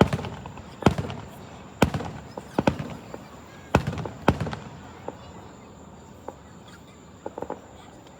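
Fireworks going off: about six sharp bangs with echoing tails in the first four and a half seconds, then a few fainter pops and crackles.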